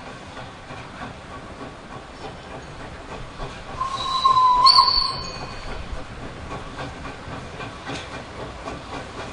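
Steam tram locomotive gives one short blast on its steam whistle, about a second long, roughly four seconds in, over the steady hiss of steam as it rolls slowly into the station.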